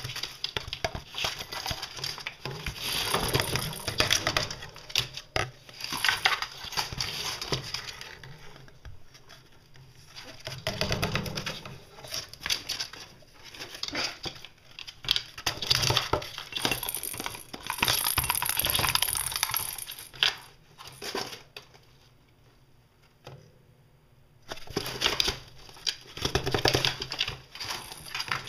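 Irregular rustling, scraping and light clicking from cardboard and the wire bars of a rabbit cage being knocked and handled, coming in bursts with a couple of quieter pauses.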